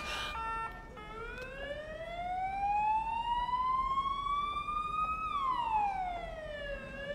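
A siren-like wail: one long tone that rises slowly in pitch for about four seconds, then falls away.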